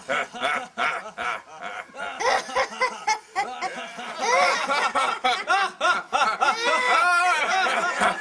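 Several people laughing in turn, a man's voice and a child's among them: repeated, drawn-out mock-sinister villain laughs.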